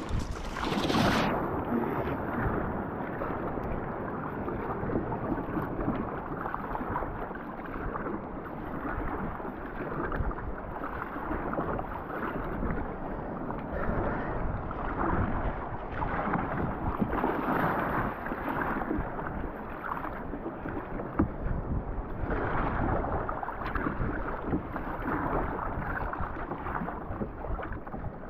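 Sea water washing and sloshing around a kayak out on the water, swelling and easing every second or two, with wind buffeting the microphone.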